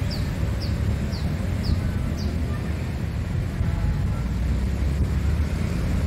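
Park ambience: a steady low rumble of distant traffic and wind on the microphone. Over it a small bird repeats a short, high, falling chirp about twice a second, stopping a little over two seconds in.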